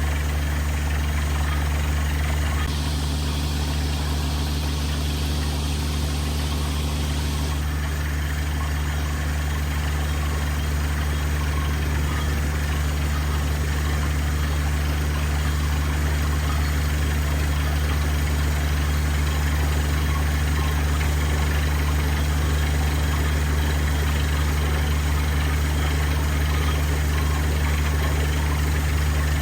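The engine of a water-well drilling rig running steadily at constant speed, with an even low hum. About three seconds in, a stronger hiss rides over it for some four seconds.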